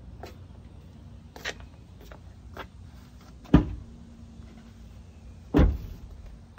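Two dull thumps about two seconds apart, the second a little longer, with a fainter click before them.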